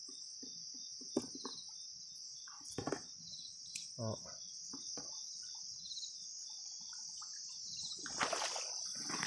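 Steady high-pitched trill of crickets and other night insects, with a second insect chirping in short pulses about every second and a half. Scattered small knocks and splashes underneath, and louder sloshing through shallow water near the end.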